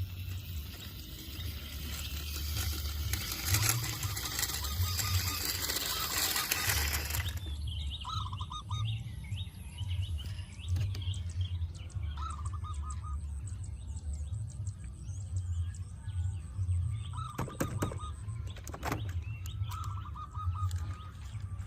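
Birds calling in short repeated chirping trills every few seconds over a steady low rumble. A loud hiss fills the first seven seconds and then cuts off suddenly.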